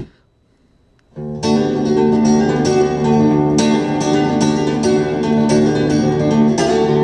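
Solo acoustic guitar instrumental played from a music player through a TDA7297 class-AB stereo amplifier board into a speaker, picked up by the camera's mono microphone. The plucked notes start about a second in, after a short near-silent gap.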